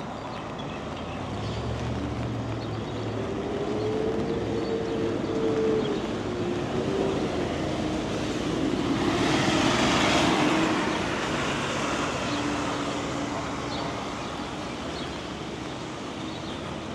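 Highway traffic passing on a road still wet from monsoon rain: steady engine hum and tyre noise, with one vehicle swelling to the loudest hiss of tyres about halfway through and then fading.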